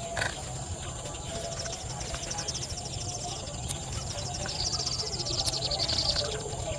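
Insects buzzing steadily with a high continuous tone. From about a second and a half in, a fast, high pulsing trill joins them and fades near the end.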